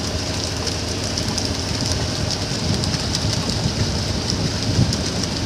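Motorboat engine running steadily under way, with water rushing against the hull in an even hiss.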